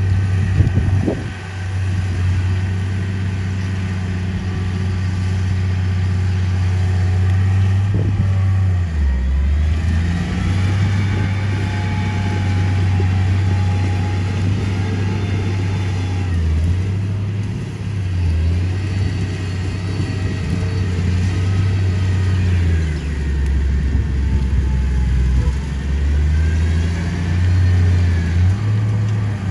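Diesel engine of heavy earthmoving machinery running under load, its pitch stepping up and down again and again as the machine works. A few clanks in the first second and another about eight seconds in, with faint whines rising and falling over the engine later on.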